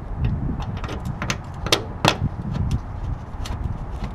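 Gloved hands pushing and working a metal bracket on a car's plastic radiator support: a string of irregular sharp clicks and knocks, the loudest two just under two seconds in, over a low rumble of handling.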